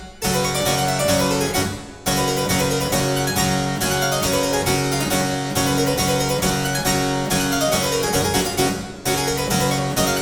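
Background music: a harpsichord-like keyboard playing a brisk, steady run of notes.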